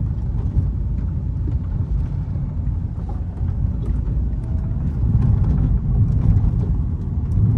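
Road and drivetrain rumble inside the closed cabin of a Volkswagen Saveiro pickup on the move, growing a little louder about five seconds in. A few faint ticks come through it, which the owner takes for the creak ('estrala') that the cargo bed makes when the body twists.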